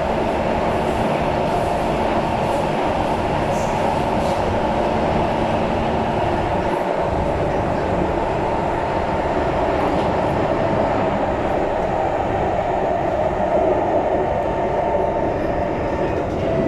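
SMRT metro train running between stations, heard from inside the carriage: a steady rumble of wheels on rail, with a faint humming tone that stops about six seconds in.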